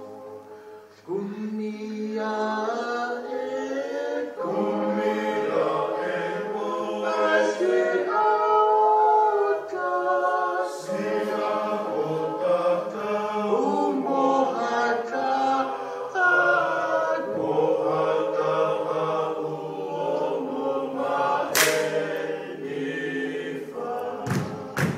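A small vocal group singing unaccompanied in several harmonizing voices, chant-like. The singing enters strongly about a second in, and a single sharp click cuts through it near the end.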